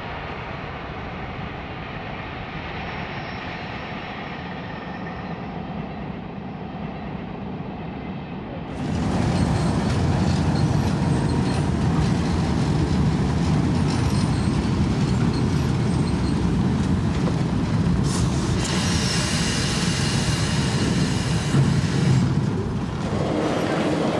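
Train sound: a train running at some distance, then about nine seconds in a sudden change to a louder, closer train rumble, with a high-pitched sound for a few seconds near the end.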